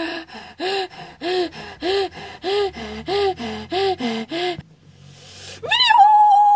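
A girl's voice making a rhythmic run of about a dozen short, breathy voiced sounds, about three a second, each rising and falling in pitch. After a short pause near the end she holds one long high drawn-out "video!"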